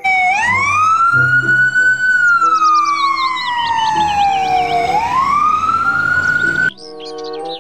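Ambulance siren wailing: a slow rising and falling wail that climbs for about two seconds, falls for about three, climbs again, then cuts off suddenly near the end.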